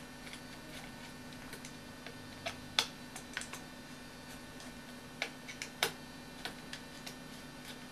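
Irregular light clicks and taps of small screws and hardware as a frame brace is screwed onto an RC helicopter's frame, the two sharpest about three and six seconds in, over a steady low hum.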